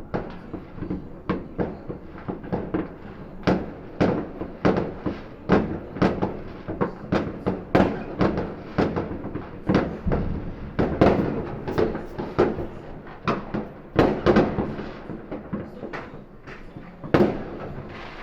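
Fireworks going off in a long irregular series of bangs, about one or two a second, each with a short rumbling tail. One of the loudest bangs comes near the end.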